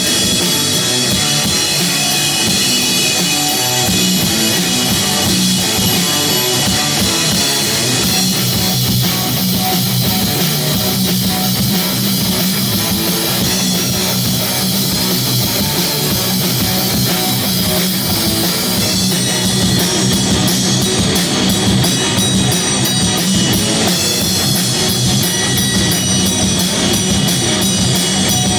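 Live doom metal played loud by a rock band: distorted guitars, bass and a drum kit keep a continuous heavy groove, with a run of fast, even cymbal strokes in the last third.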